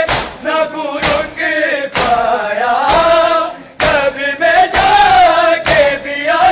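Male voices chanting a noha together in unison. Beneath it, a crowd of mourners does matam, striking their bare chests with open hands in a steady beat of about one loud slap a second.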